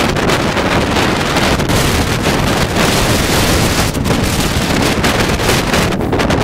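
Wind buffeting a helmet-mounted camera's microphone while cycling: a loud, constant rushing noise that flickers and gusts throughout.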